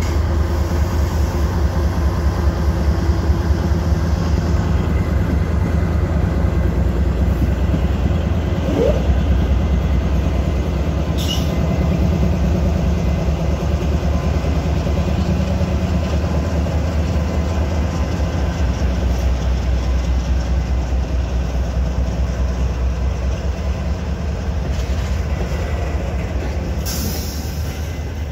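Union Pacific freight train passing close by: diesel locomotives running with a steady low rumble, and empty covered hopper cars rolling past on the rails.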